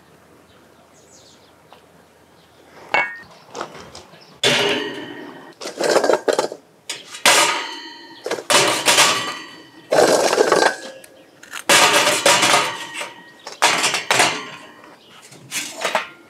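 Lumps of charcoal clattering and clinking against a metal charcoal chimney starter, in a quick series of short rattling pours with a metallic ring, starting about three seconds in.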